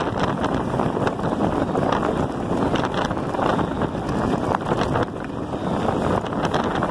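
Wind rushing over the microphone of a bike-mounted camera at riding speed, with the electric bike's tyres crunching and rattling over loose gravel in many small ticks.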